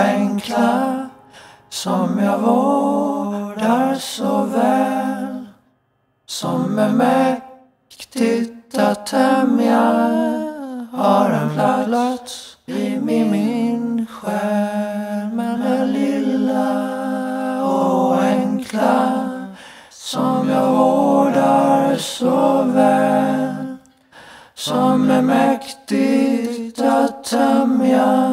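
Music: unaccompanied singing, a cappella, in phrases with short breaks between them.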